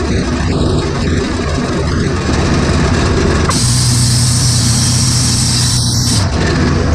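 Wood-Mizer LT40 Super Wide band sawmill running, its engine holding a steady drone while the band blade cuts through a cork block. About halfway through, a brighter high hiss comes in and drops away again near the end.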